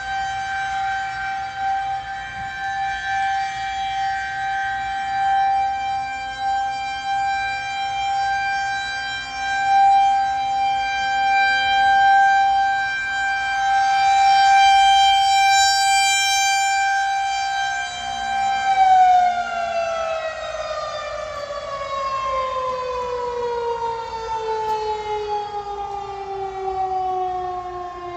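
Federal Signal 2001-130 rotating electromechanical outdoor warning siren sounding a steady tone for a tornado warning, growing louder and then fading as it turns. About nineteen seconds in it starts winding down, its pitch falling steadily.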